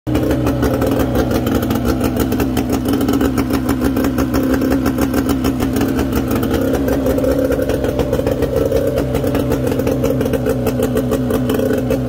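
Mercury 25 hp outboard motor running steadily, with a rapid, even firing beat.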